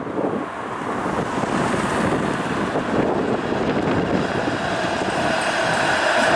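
Flexity Outlook low-floor streetcar approaching and passing close, a steady rumble of wheels on rail and running gear that grows gradually louder as it draws near.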